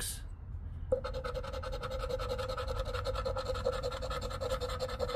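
A metal poker-chip scratcher scraping the latex coating off a scratch-off lottery ticket in rapid back-and-forth strokes. The scraping starts about a second in.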